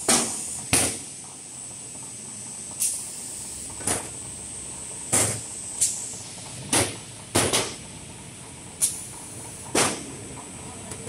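HRT roll packing machine working: a dozen or so sharp air hisses, roughly one a second at uneven intervals, each dying away quickly, typical of pneumatic cylinders firing and exhausting. Underneath runs a steady mechanical hum with a thin high whine.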